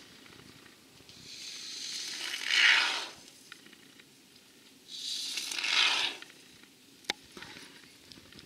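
Aerosol can of expanding spray foam hissing and sputtering as foam is squirted through its straw nozzle, in two bursts: the first about two seconds long and loudest at its end, the second about a second long. A single sharp click about seven seconds in.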